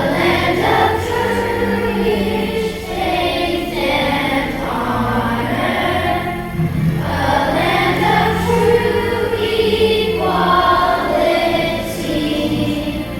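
A choir singing a patriotic song with musical accompaniment, holding long notes.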